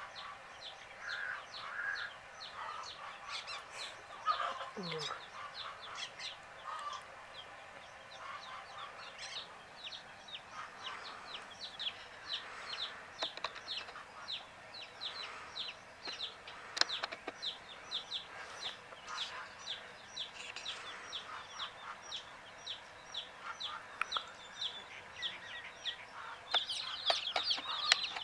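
Baby chicks peeping: a steady run of short, high, downward-sliding chirps from several chicks, with some lower, softer calls mixed in. Near the end the peeping becomes denser and louder.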